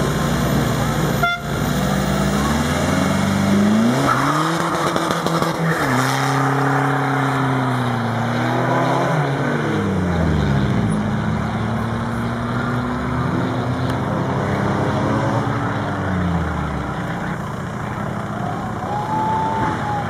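Two Volkswagen Passats' engines racing each other down a drag strip. They hold steady revs at the line, then rise hard on the launch about two and a half seconds in. The pitch drops back at each upshift, around five and nine seconds in, and the sound sinks lower as the cars pull away.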